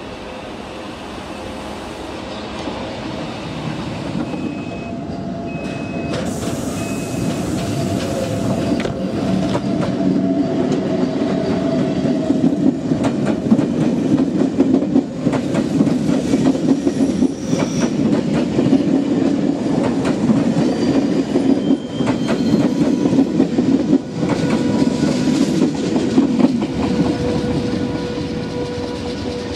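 Electric passenger trains running through the station, their wheels clattering over rail joints and points. The sound grows louder over the first dozen seconds, stays loud, and eases off near the end, with a brief high tone about five seconds in.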